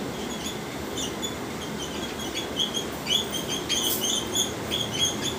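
Whiteboard marker squeaking against the board while words are written, a run of short high chirps coming quickly in the second half, with a few light taps of the pen tip.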